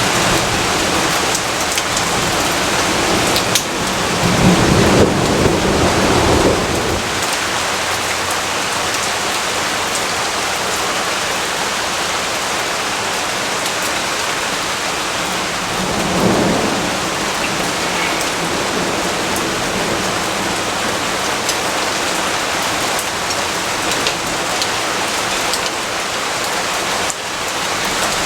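Steady heavy rainfall hissing on surfaces, with two low rumbles of thunder: a louder one about four seconds in lasting a couple of seconds, and a softer, shorter one about sixteen seconds in.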